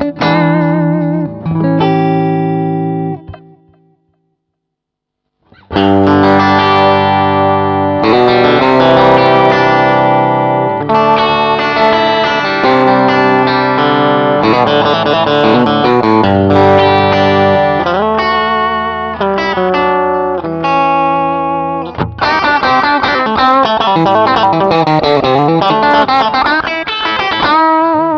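Harley Benton Telecaster-style kit electric guitar played through its stock pickups. A strummed chord rings and fades out about four seconds in, and after a short silence the playing resumes with continuous chords and single notes.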